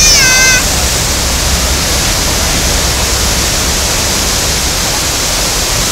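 Loud, steady rush of river whitewater pouring over the Eisbach standing wave. In the first half-second a brief high-pitched call rises and then holds.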